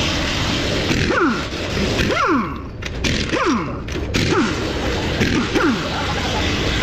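Air impact wrench spinning off a car wheel's lug nuts, several short bursts about a second apart, each ending in a falling whine.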